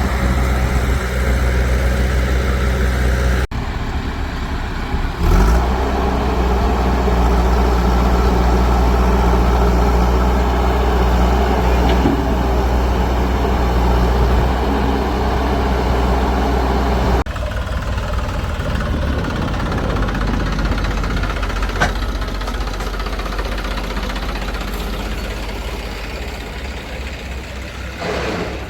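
Diesel engines of a backhoe loader and farm tractors running steadily under work. The sound changes abruptly twice, and there is a brief knock about five seconds in.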